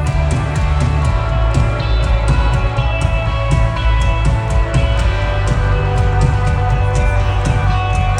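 Rock band playing live, with a steady drum beat, heavy bass and sustained guitar and keyboard-like tones.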